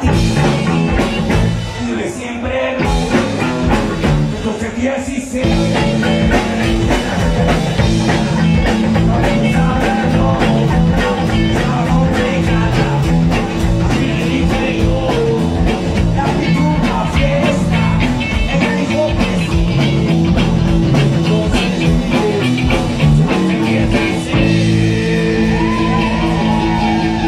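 Live rock band playing loud, with electric guitar over a steady beat.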